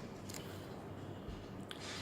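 Faint handling noise over a low background hiss, with one small click near the end.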